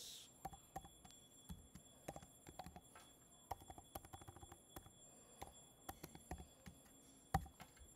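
Computer keyboard typing: faint, irregular key clicks, with one louder click a little past seven seconds in.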